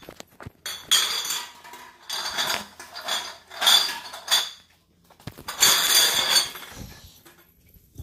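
Rustling and bumping of a phone handled close to its microphone, in several short noisy bursts with a few small clicks.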